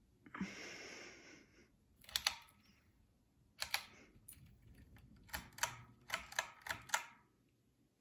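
Pull-chain switch of a Hampton Bay Glendale ceiling fan clicking about ten times, several of them in quick pairs. A brief rustle comes about half a second in.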